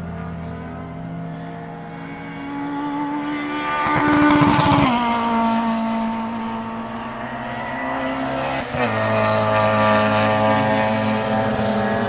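Race car engines running at high revs on a track. The engine note swells about four seconds in and drops sharply in pitch as a car goes by, and another loud engine note follows from about nine seconds.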